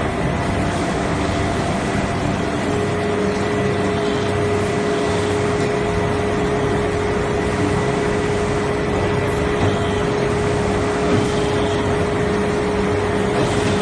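Steady industrial machinery noise: a constant rushing din with a low rumble and a few steady whining tones, one of which sets in about three seconds in.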